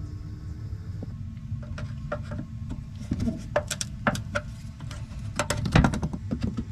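Scattered clicks, knocks and light rattles of hands and tools handling parts on a car, over a steady low rumble, growing busier and louder near the end.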